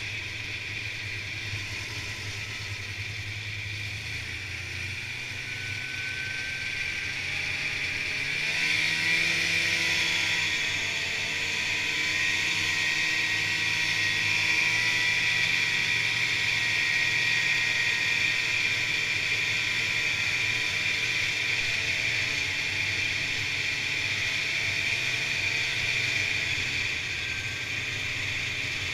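Polaris Indy snowmobile's two-stroke engine running under way, picking up speed with rising pitch about eight seconds in, then holding a louder, steady high-pitched drone.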